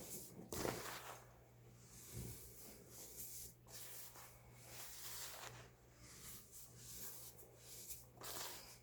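Baking soda being crushed and crumbled, a run of soft, irregular crunches, the loudest about half a second in and again near the end.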